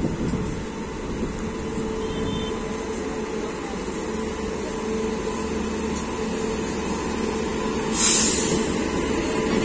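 WAP-7 electric locomotive hauling an express train out of the station, its traction equipment humming in steady tones over the rumble of wheels on rail. About eight seconds in comes a short, loud hiss of air.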